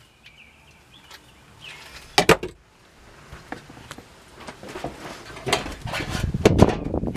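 Replacement sheet-metal floor pan for a Jeep Cherokee XJ being handled and fitted into the cut-out floor: a couple of sharp metal knocks about two seconds in, then irregular scraping, clicking and thumping of the panel that gets louder toward the end.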